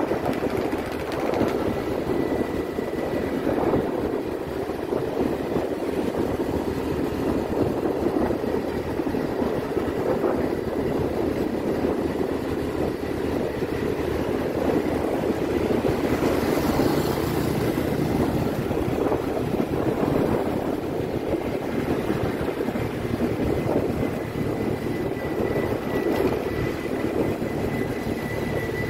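Riding a motorbike at a steady speed: a continuous rush of wind over the microphone, mixed with the engine's drone and tyre noise.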